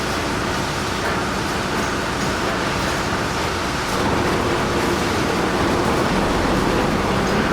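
Heavy machine running: a loud, steady, dense mechanical noise with a low rumble underneath.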